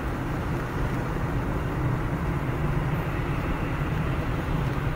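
Steady low road noise of a car driving on a wet road, heard from inside the cabin: engine and tyre hiss with no sudden sounds.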